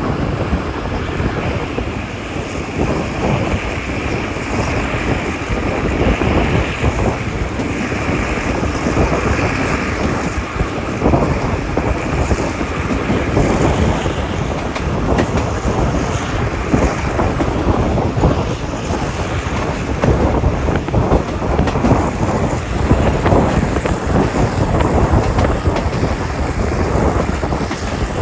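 Passenger train running at speed between stations, heard from on board: a loud, steady rumble and rush of noise with many small rattles from the wheels and carriage.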